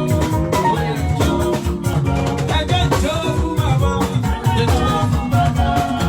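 Jùjú band music with drum kit, percussion and guitar playing a steady groove, with gliding pitched notes about halfway through.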